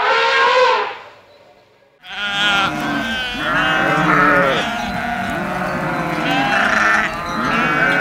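A herd of goats bleating, many calls overlapping, starting about two seconds in. Before that, a long pitched elephant call fades out within the first second.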